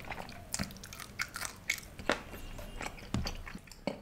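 Close-miked chewing of food, with irregular wet mouth smacks and crisp little crunches.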